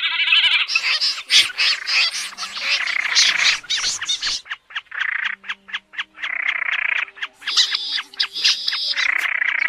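Common snipe calls played as a trapping lure: dense runs of harsh, rasping notes, breaking about halfway into evenly spaced ticking at about five a second before the rasping returns. Faint low background music notes sit underneath.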